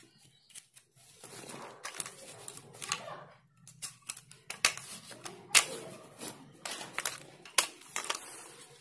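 Rustling of a small fabric carry bag being opened, then a tripod being pulled out and handled, with scattered sharp clicks and knocks, the loudest about halfway through.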